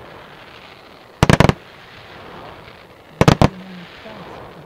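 Display fireworks bursting in two quick volleys of four or five sharp bangs each, about two seconds apart, with a faint hiss between them.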